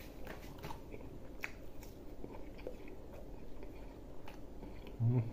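A person chewing a mouthful of stuffed flatbread close to the microphone, with scattered faint clicks of the mouth and food. A short low vocal sound comes near the end.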